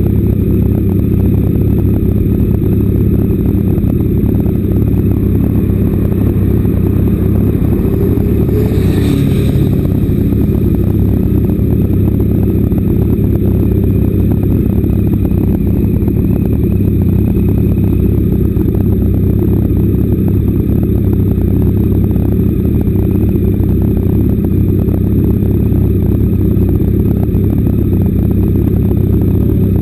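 Motorcycle engine idling steadily at a standstill, close to the microphone. A brief higher-pitched rush comes about nine seconds in.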